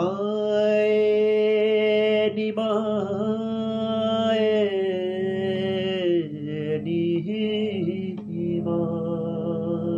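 A man singing a long held note with wavering ornaments over a steady harmonium drone; about halfway through the melody steps down and breaks into shorter notes.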